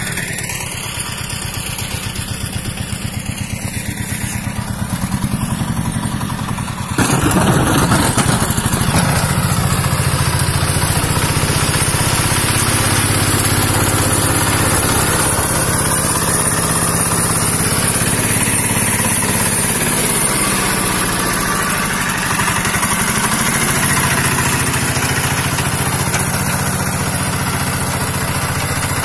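Single-cylinder diesel engine of a Rusich T-12 12 hp mini tractor running steadily with a rapid, even firing beat while it plows snow. It is louder and closer from about seven seconds in.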